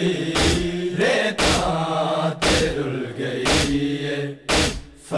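Men's group chanting a Shia noha over a crowd beating their chests in unison (matam): a loud, sharp slap about once a second, keeping time under the sung lines.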